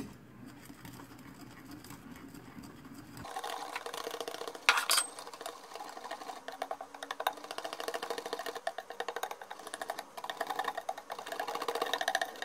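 Wire whisk beating glutinous rice flour and coconut milk in a ceramic bowl: fast, rhythmic scraping and tapping of the wires against the bowl, starting about three seconds in, with a sharper clink about five seconds in.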